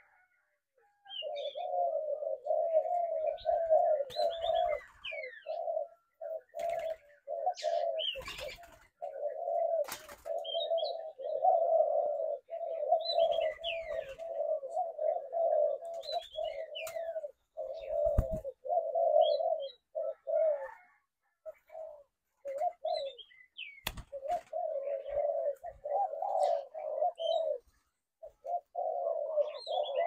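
Spotted doves cooing almost without pause, several birds overlapping in a rapid pulsing run that breaks off briefly a few times. Thin, falling high chirps run over it, and there are a few sharp knocks.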